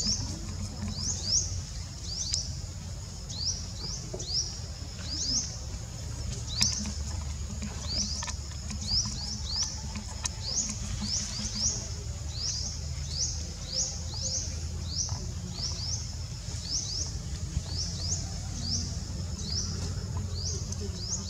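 Wild forest chirping: short high chirps repeating about once or twice a second over a steady low background rumble.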